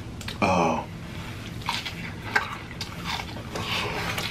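Close-miked chewing of cheese-sauce-covered fried food: wet, squishy mouth sounds with scattered small clicks. A short voiced sound comes about half a second in.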